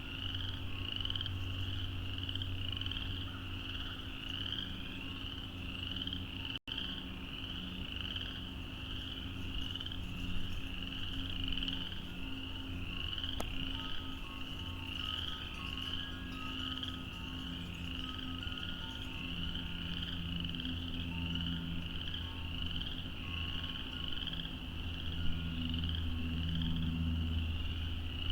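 Chorus of frogs calling steadily, a dense stream of short, high, slightly rising notes, over a low steady hum.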